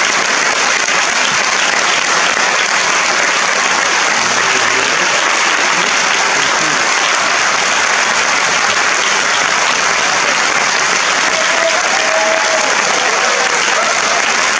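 Theatre audience applauding steadily, with a few faint voices calling out over the clapping near the end.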